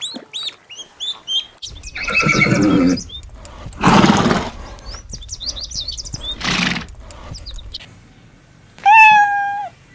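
Horse whinnying, with two short breathy blasts, over small birds chirping. Near the end a separate clear, held animal call with a falling end.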